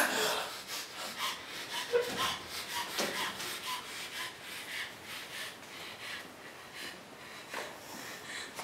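Scuffling of a staged strangling struggle on a mattress: blankets and clothing rubbing and rustling in a string of short rasping strokes, with a sharp knock right at the start. The strokes thin out toward the end.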